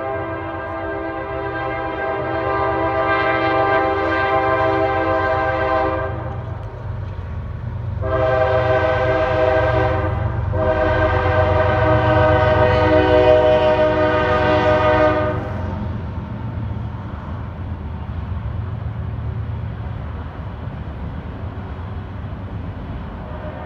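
Diesel freight train's multi-note locomotive horn sounding for a road grade crossing in three blasts: a long one ending about six seconds in, a shorter one about two seconds later, then a long one that stops about fifteen seconds in. A low rumble from the approaching train runs underneath and goes on after the horn stops.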